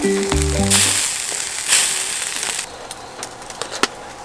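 Meat skewers sizzling over a charcoal grill, loud for about two seconds, then fainter scattered crackles with a sharp click near the end. Background music with held notes ends about a second in.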